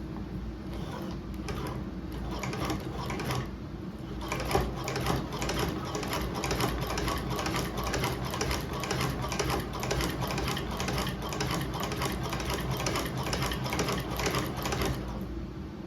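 Hand-cranked cobbler's sewing machine stitching through leather. It clicks as each stitch is made: a few slow stitches first, then a steady run of about three stitches a second, stopping near the end.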